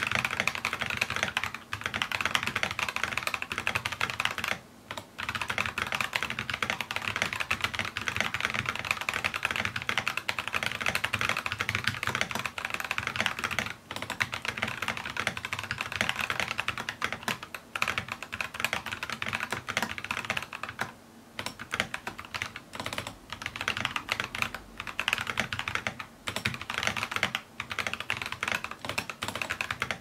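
Steady fast typing on an NK65 Entry Edition mechanical keyboard with Gazzew Boba U4T 62g tactile switches lubed with Tribosys 3203 and MT3 keycaps, picked up by a camera microphone. It is a dense stream of keystroke clacks broken by a few short pauses.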